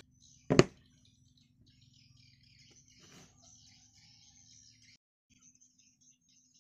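A single sharp wooden knock about half a second in, as a board is set down on a wooden workbench. After it, faint birds chirping in the background over a faint steady hum.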